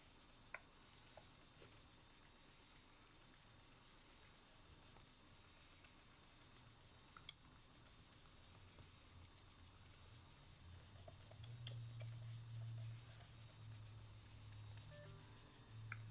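Near silence with faint scratches and scattered small ticks of a pen working on paper. A faint low hum comes in about ten seconds in.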